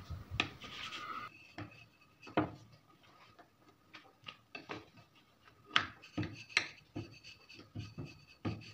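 Wooden rolling pin rolling whole-wheat dough into a thin round on a metal rolling board: light rubbing broken by scattered, irregular knocks and clicks as the pin and dough meet the metal.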